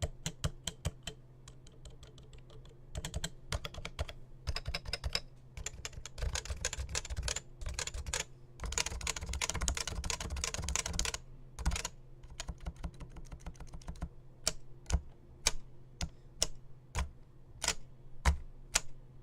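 Typing on a Topre Realforce 91UDK-G keyboard with electrostatic capacitive Topre switches. Keystrokes come in short runs, fast and dense from about six to eleven seconds in, then slow down to single presses, a few of them louder near the end.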